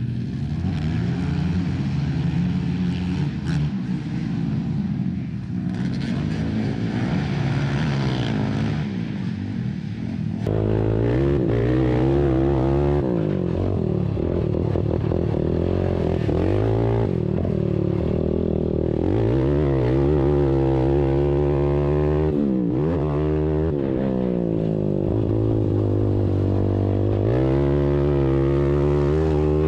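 ATV engines racing on a dirt short track, revving up and down with the throttle as they go round. About ten seconds in, one engine becomes much louder and closer, its pitch climbing and dropping again and again.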